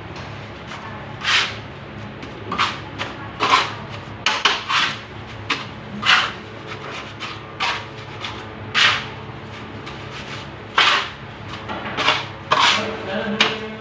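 Hand-tool work: short scraping strokes at an irregular pace, roughly one a second, typical of working cement or pipe by hand.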